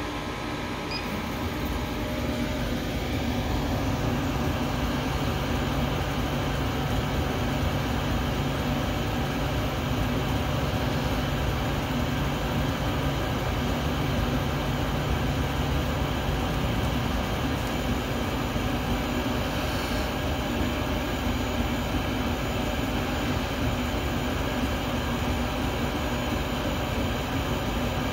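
Chinese CO2 laser cutter running an engraving job: a steady mechanical hum and rush from the machine's fans and motors as the head moves over the board, growing louder over the first few seconds and then holding steady.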